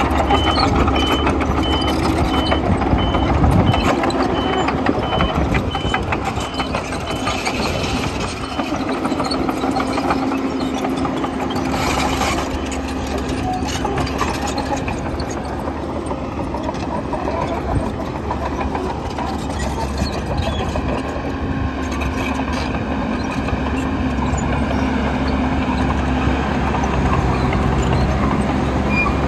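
Crawler bulldozer's diesel engine running steadily as it pushes and levels soil. A reversing alarm beeps repeatedly at the start and stops about a third of the way in.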